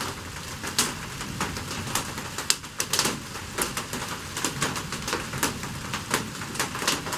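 Rain falling, heard as many irregular drops and ticks over a steady hiss.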